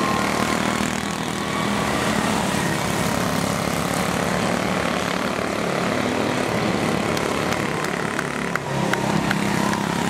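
Small engines of quarter midget race cars buzzing steadily as the cars lap a dirt oval, with a few sharp clicks near the end.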